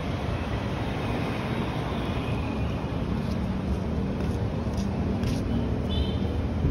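City street traffic noise: a steady low rumble of car engines and tyres on the road, with a brief high squeak just after six seconds.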